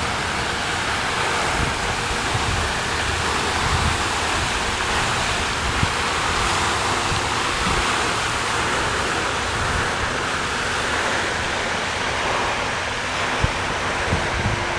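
Steady rushing noise with an uneven low rumble of wind buffeting the microphone.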